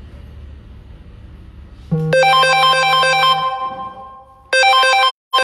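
A phone ringtone playing an electronic melody, starting loud about two seconds in, fading, then sounding again briefly before it cuts off abruptly near the end.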